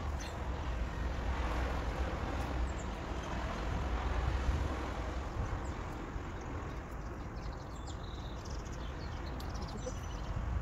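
Wind rumbling on the microphone, a steady low buffeting, with rustling of the cotton headwrap cloth as it is wrapped and tucked.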